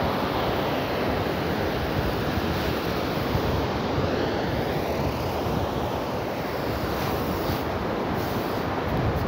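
Steady rush of surf and wind, with wind buffeting the microphone.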